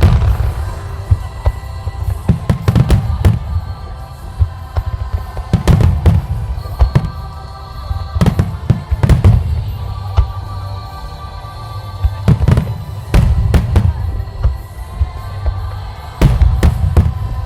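Fireworks shells bursting in quick, irregular clusters, sharp cracks each followed by a deep rumbling boom, with music playing steadily underneath.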